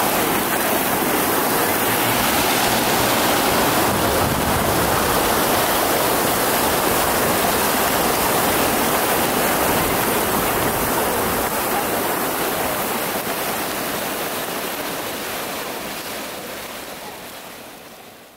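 A large mass of empty plastic PET bottles dragged over pavement: a loud, dense, steady rushing clatter that fades out over the last few seconds.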